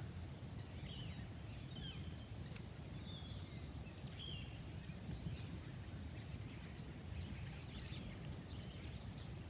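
Quiet outdoor ambience: scattered faint bird chirps over a low, steady rumble.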